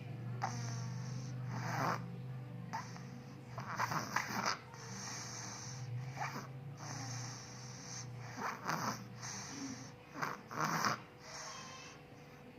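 A small child snoring: a rasping snore on each breath, about every two seconds, over a steady low hum.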